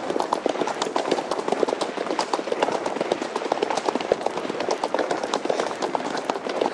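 Thoroughbred horses cantering, a rapid unbroken patter of hoofbeats.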